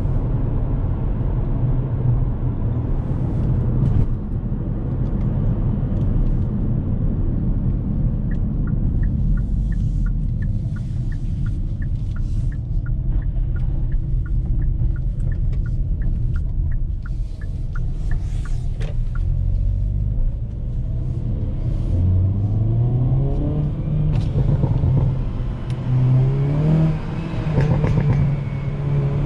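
Hyundai Kona N's 2.0-litre turbo four-cylinder engine running with a low rumble, while a regular ticking sounds for about ten seconds in the middle. From about two-thirds of the way in, the engine revs climb in repeated steps, falling back at each upshift of the eight-speed dual-clutch gearbox as the car accelerates.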